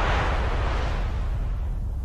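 Cartoon sound effect of a blast of wind and dust: a dense rushing rumble whose hiss fades over the second half, leaving the low rumble.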